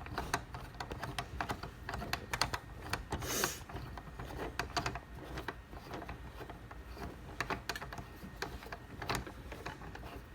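Irregular small clicks and knocks as legs are screwed onto a foot stool, with a short scrape about three and a half seconds in.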